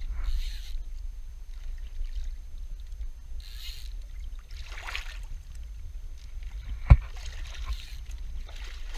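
Small boat on the sea: a steady low rumble with a few short bursts of water splash and hiss, and a single sharp knock against the hull or deck about seven seconds in.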